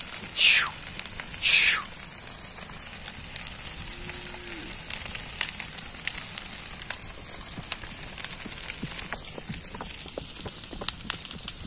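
Large bonfire of pruned branches burning, a steady hiss of flames with many small crackles and pops. Two brief loud sounds sweep down in pitch about half a second and a second and a half in.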